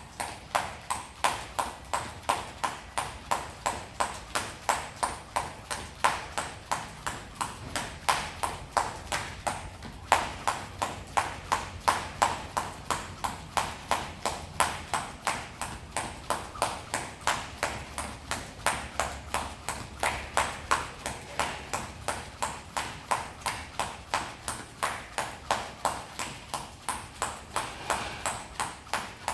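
Jump rope slapping the floor in a steady skipping rhythm, about three sharp clicks a second.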